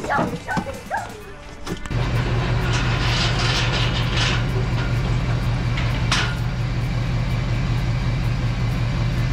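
A motor vehicle engine running steadily, starting abruptly about two seconds in after a moment of music and voice. A stretch of hiss comes a second or two later, and a sharp click follows near six seconds.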